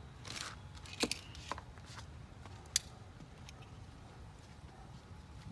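Light clicks and taps of small parts being handled, with a brief rustle near the start and a sharp click a little under three seconds in, over a low steady hum.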